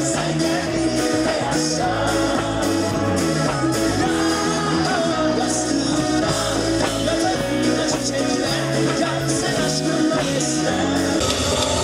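Live concert music played loud through a PA, with vocals over a band backing that has a steady beat.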